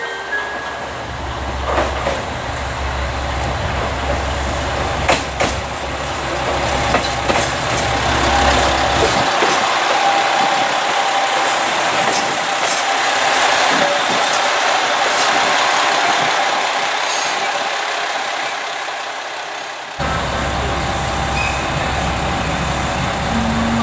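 JR Shikoku 2000 series diesel train pulling into the platform. The rush of its engines and wheels on the rails swells and then fades, with several sharp clicks over rail joints and a thin steady whine. Early on this sits over the low idling rumble of a diesel railcar. Near the end the low rumble of the stopped train idling returns.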